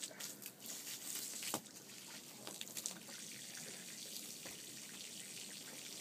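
Galapagos giant tortoise biting and tearing leaves: a scatter of wet snapping clicks over the first three seconds or so, over a steady hiss.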